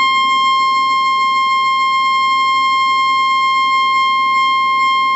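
ARP Pro/DGX monophonic analog synthesizer sounding one steady, high-pitched held note with bright overtones. This is a test of its just-repaired repeat touch effect.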